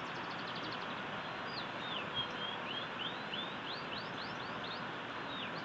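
Young canary practising its song: a quick trill of short falling notes, then slower slurred whistles, then another quick trill near the end. It sounds over a steady background hiss.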